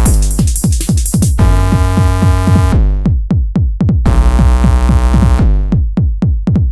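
Jump-up drum and bass track: a fast drum machine beat with rapid falling bass hits under a held synth chord. The high end cuts out for stretches about three seconds in and again near the end.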